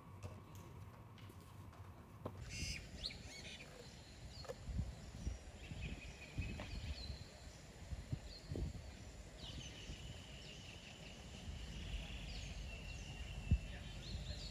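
Birds chirping and calling over a low rumbling background, with a steadier trilling call lasting a couple of seconds past the middle. A single sharp knock comes near the end, and faint room noise fills the first two seconds.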